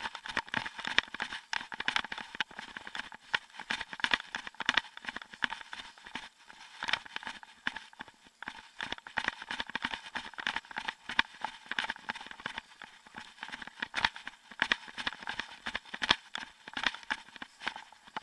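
Brisk footsteps of a person following a tracking dog, with rustling and crinkling of clothing and the long line close to the microphone: a continuous run of short irregular clicks and scuffs.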